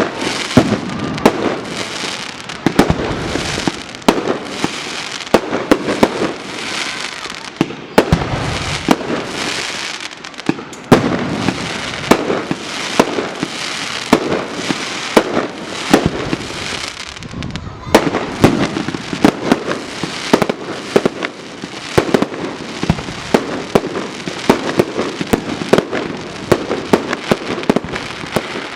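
Fireworks salute: aerial shells bursting in a rapid, continuous run of sharp bangs, several a second, over a steady noisy haze that continues between them.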